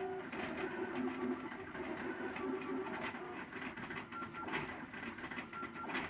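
MakerBot Thing-O-Matic 3D printer running a print, its stepper motors whining in steady tones that change pitch every fraction of a second as the head moves, with scattered light clicks.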